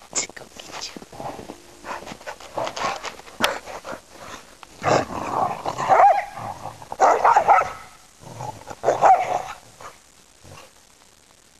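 Two Australian Shepherds play-fighting, with growls and barks in repeated loud bursts through the middle, dying down near the end.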